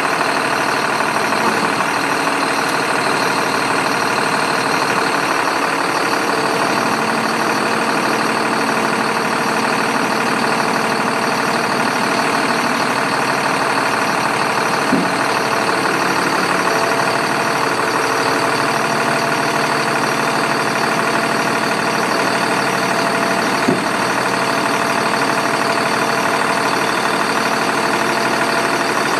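Sterling L8500 dump truck's diesel engine idling steadily while the raised dump body comes down on its hydraulic hoist, with two short knocks, one about halfway through and one some nine seconds later.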